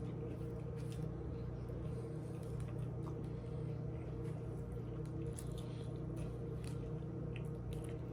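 A person chewing a sandwich with soft wet mouth clicks and squishes, over a steady low hum.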